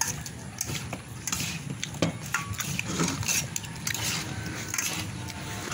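Two metal spoons tossing a chopped salad in a stainless steel bowl: irregular clinks and scrapes of spoon on bowl.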